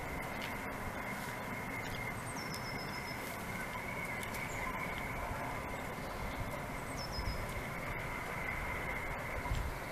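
Steady outdoor background hiss and low rumble, with a small bird chirping briefly twice, about two and a half seconds in and again about seven seconds in.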